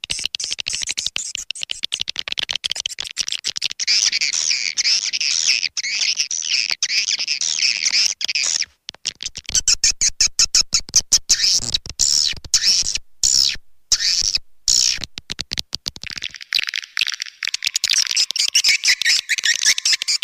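Swiftlet lure call: a dense, rapid, high chattering twitter of swiftlets, the recording played to draw swiftlets into a nesting house. It breaks off in several short gaps about halfway through, then carries on.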